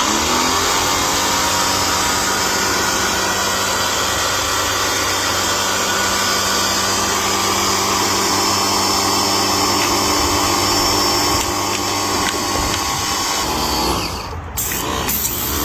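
Electric pressure washer's motor and pump running steadily. It spins up quickly at the start, then winds down with a falling pitch and stops near the end.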